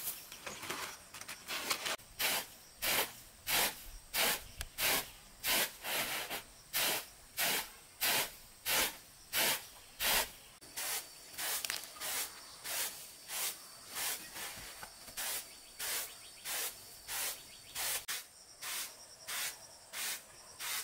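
Rhythmic swishing, one hiss roughly every two-thirds of a second, keeping an even beat throughout. Faint steady high-pitched insect tones join from about ten seconds in.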